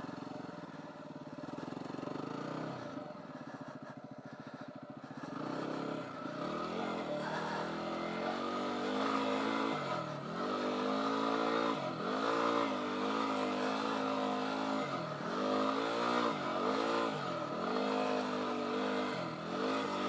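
2015 Yamaha WR250R's 250 cc single-cylinder four-stroke engine ridden in sand. It runs low and steady at first, then from about five seconds in it gets louder and its pitch repeatedly drops and climbs again as the throttle is eased off and opened.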